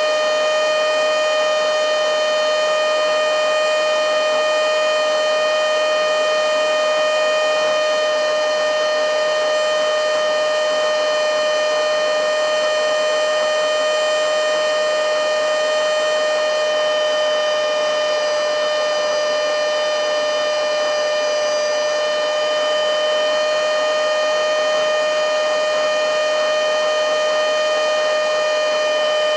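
Battery-powered mini handheld blowing/sucking vacuum cleaner (XCQ-5588/XCQ-508) running continuously: a loud, steady high-pitched motor whine over a rush of air.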